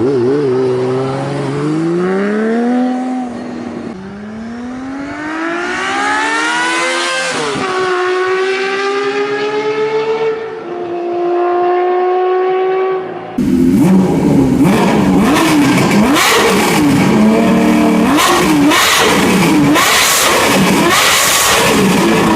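Honda CBX 1050's inline-six engine pulling hard through the gears, its pitch climbing and then dropping at each shift. About 13 seconds in a sudden cut brings a louder stretch of the engine revving up and down in quick succession.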